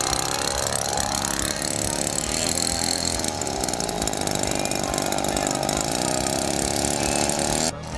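Converted 18cc weed-eater two-stroke engine with a gutted muffler, running on the nose of a model plane and turning its propeller; the pitch rises and falls as the throttle moves. The sound drops out briefly near the end.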